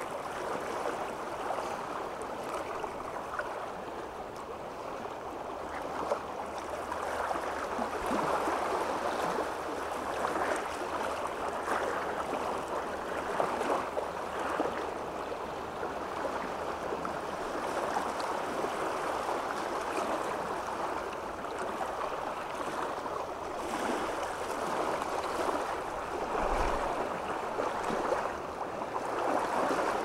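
Water rippling: a continuous wash of many small splashes that swells and eases a little in level.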